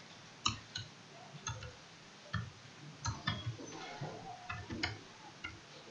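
Computer keyboard keys tapped at an uneven pace, faint separate clicks.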